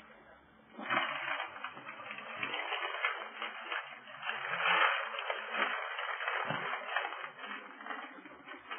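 Guinea pigs rustling about in dry bedding: a dense, crackly rustle of many small clicks that starts about a second in and swells near the middle.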